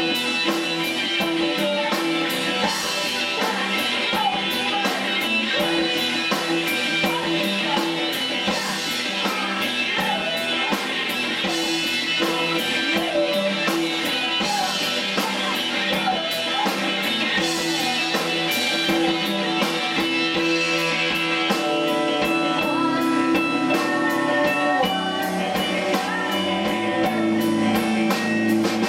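A rock band playing live: electric guitars, bass and a drum kit keeping a steady, fast beat, with a woman singing into a microphone.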